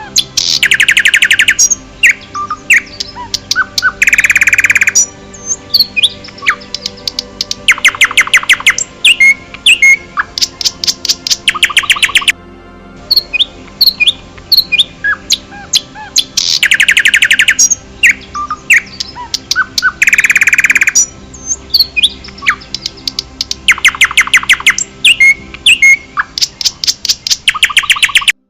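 Several birds singing: loud rapid trills about a second long come every few seconds, with scattered short chirps and whistles between them.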